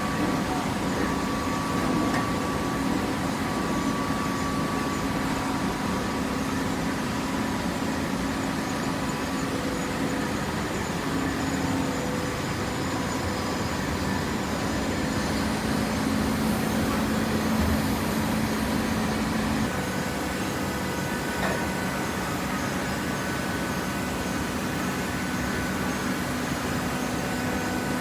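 Hydraulic waste paper baler running: a steady mechanical hum of its motor and pump, whose tone changes about twenty seconds in.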